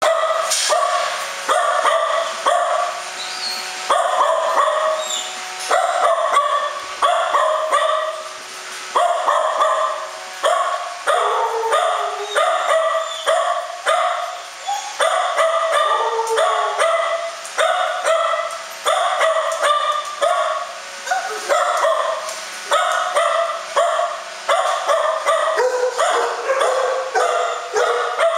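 Dogs barking over and over, about two barks a second without a break, with barks at more than one pitch overlapping, in a kennel building.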